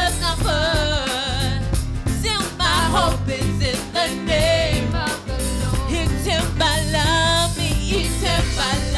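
Live gospel worship song: a woman sings the lead with vibrato into a microphone over a band with drum kit and keyboard.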